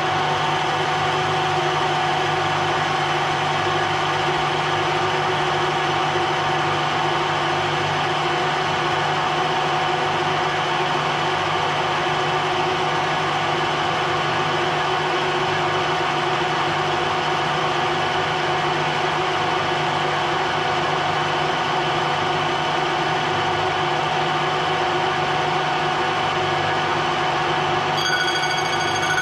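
Ajax milling machine running steadily, its motor and gearing giving an even hum with a steady whine. Near the end a set of high steady tones joins in.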